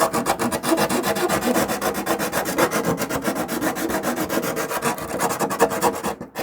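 A plastic fitting being sanded by hand with a small sanding drum: a fast, steady rasping scrape of many short strokes, opening up threads that are too tight. There is a brief pause just before the end.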